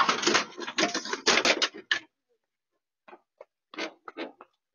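Metal scraping and grinding, with rapid rough scrapes, as a rolling SUV's open door drags along a parked car's bodywork. It stops about two seconds in, and several short sharp sounds follow near the end.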